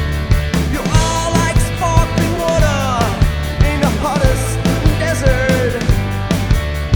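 A band playing a song live: a steady drum beat and bass under a lead line that slides and bends in pitch.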